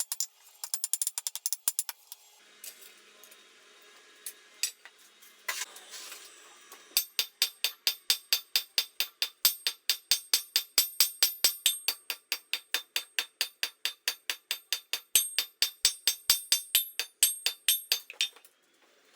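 Hammer striking hot steel on an anvil, drawing out a taper on the bar: a few scattered blows early on, then a long run of steady, even blows about four or five a second with a bright metallic ring, stopping near the end.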